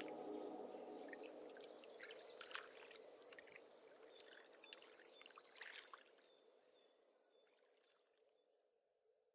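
The end of an ambient music track fading out: a held chord dies away over the first few seconds, leaving a faint trickling, water-like ambience with scattered crackles and short high chirps, which fade to silence about seven seconds in.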